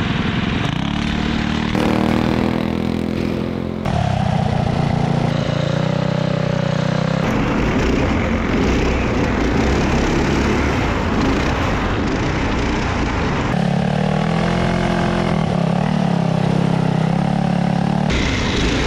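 Small single-cylinder go-kart engines running at high revs over rough dirt, the pitch rising and falling with the throttle. The sound changes abruptly several times.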